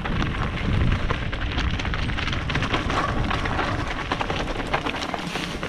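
Mountain bike rolling fast down a leaf-strewn, stony singletrack: tyres crackling over dry leaves and loose stones and the bike rattling, with wind rumbling on the microphone.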